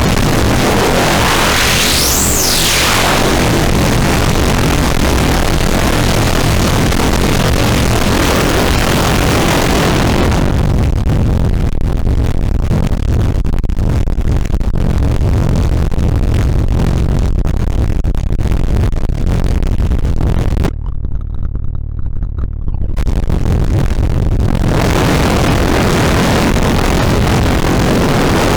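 Snowstorm distortion pedal's white-noise drone: dense, loud distorted noise with heavy bass. A whistling sweep rises and falls in the first few seconds; about ten seconds in the highs drop away to a darker, bass-heavy noise, the top cuts out almost entirely for a couple of seconds past the twenty-second mark, and full-range hiss returns near the end.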